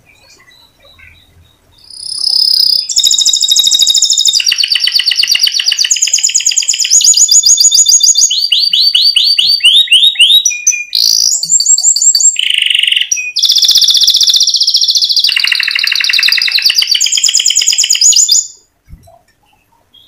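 Domestic canary singing a long rolling song of fast trills, each run of rapid repeated notes at a new pitch every second or so. It starts about two seconds in and stops abruptly near the end.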